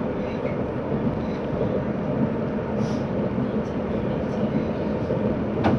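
Steady running noise inside the passenger car of a moving Stadler FLIRT (EPg) electric train: wheels on rails with a faint steady hum, and one sharp click near the end.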